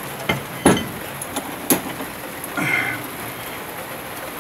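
A few separate metal knocks and clinks as a brake disc and hub assembly is handled and set into a bench vise, two of them louder and about a second apart.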